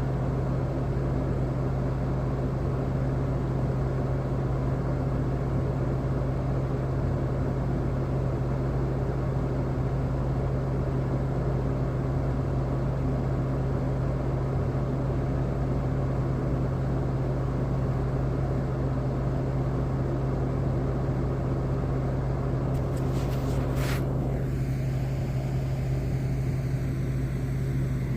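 Steady low drone of a running machine, unchanging in level, with a few brief high hissing streaks about 23 to 24 seconds in.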